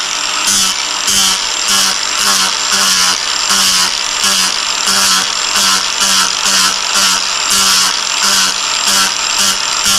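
Ryobi cordless angle grinder running and grinding, loud, its sound swelling and easing in an even rhythm a little under twice a second.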